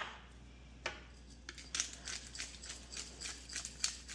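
Hand pepper grinder being twisted: a run of quick, irregular clicks, about three or four a second, starting about a second and a half in, after a single knock just under a second in.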